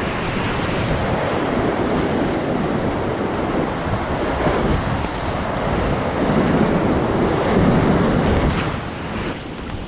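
Whitewater rapid rushing and crashing around a kayak, heard from close to the water, with wind on the microphone. It builds to its loudest a little past halfway, then drops off sharply near the end.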